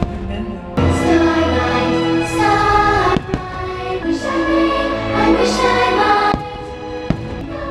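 Fireworks-show soundtrack: orchestral music with a choir singing sustained chords, punctuated by about five sharp firework bangs.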